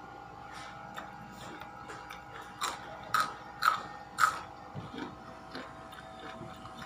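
Crisp bites and chewing of raw vegetables: four loud crunches about half a second apart in the middle, with softer mouth clicks around them. A faint steady hum sits underneath.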